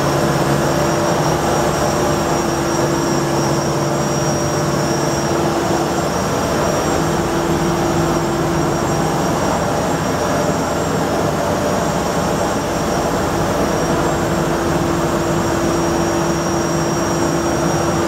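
CMS 1800 compact wheat flour mill running on its first test run after assembly: a loud, steady machine drone with an even hum through it.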